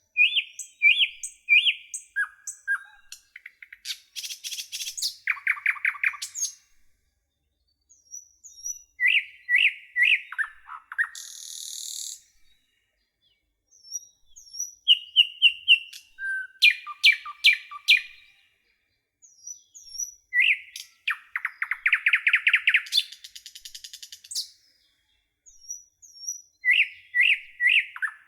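A songbird singing: bright chirps, quick trills and buzzy rattles, in the same song phrase repeated about five times with short silent gaps between.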